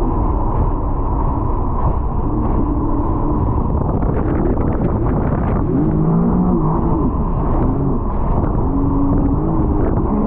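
A 300-horsepower jet ski engine running under way, a heavy rumble whose pitch rises and falls several times as the throttle changes, with steady wind and water noise over it.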